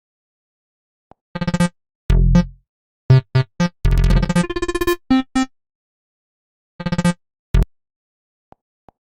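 An Android 10 built-in tone, a short synthesizer melody of quick bright notes, played straight from the device's audio output. It starts about a second in and runs about four seconds, then a brief phrase follows near the end, with silence around it.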